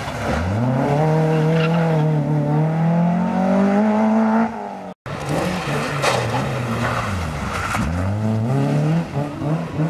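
Peugeot 205 rally car's four-cylinder engine at full throttle, its note climbing steadily as it accelerates past and away. After a cut about halfway, a Citroën Saxo rally car follows hard on the throttle, its engine note dipping and climbing again twice as it pulls away.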